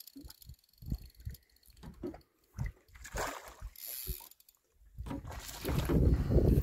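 Fishing reel being wound in while playing a fish, its mechanism clicking and rasping in short irregular bursts. From about five seconds in, a loud low rumble takes over.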